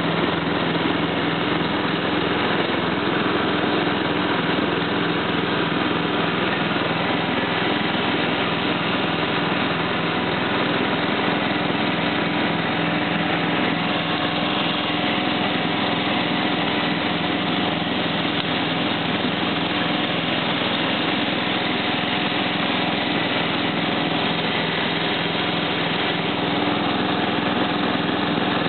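Simplicity 4211 lawn tractor's engine running steadily at an even speed as the tractor drives across the lawn, heard close from the driver's seat.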